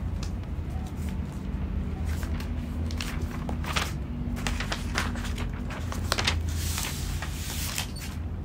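Paper and cardboard rustling and crinkling as the inner paper-board lid of an iPad Pro box is lifted off and the tablet's protective paper wrap is pulled away, in a run of short crinkles with the densest rustle about a second before the end. A steady low hum runs underneath.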